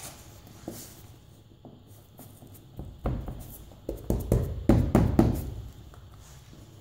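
Irregular run of knocks and clicks from handling a can of minimal-expanding window-and-door spray foam, its applicator straw pushed into a hole in laminate flooring. A few faint ticks come first, then a dense cluster of louder knocks for about two and a half seconds from about three seconds in.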